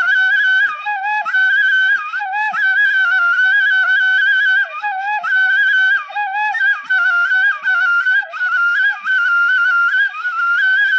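Background music: a flute-like wind instrument playing an ornamented traditional melody in short phrases.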